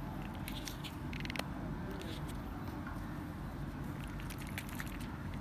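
Faint clicks and rattles of a plastic syringe being handled and shaken to dissolve a medicine powder in water, over a steady low background rumble.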